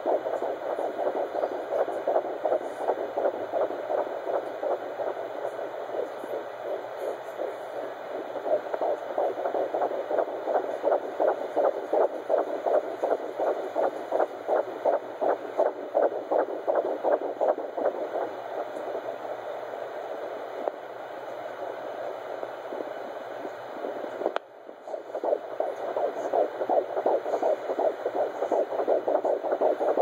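Pocket fetal Doppler playing a 13-week fetal heartbeat: fast, even whooshing pulses at about 150 beats a minute, which the uploader finds echoey. About two-thirds of the way through, the beats fade and cut out for a moment, then come back strongly.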